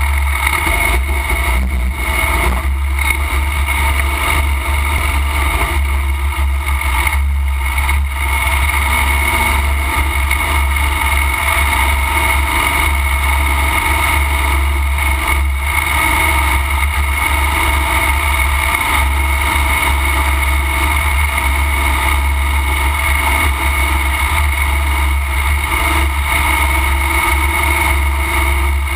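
Pro-Mod racing lawn tractor's engine running loud and steady at speed, heard up close from a camera mounted on the machine, over a heavy low rumble.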